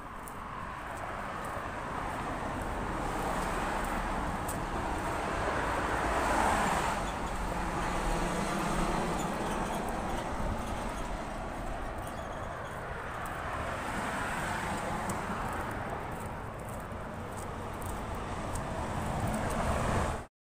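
Road traffic on a wide multi-lane street: vehicles passing one after another, each swelling and fading over a steady low rumble, the loudest around seven seconds in and again near the end as a box truck comes by. The sound cuts off abruptly just before the end.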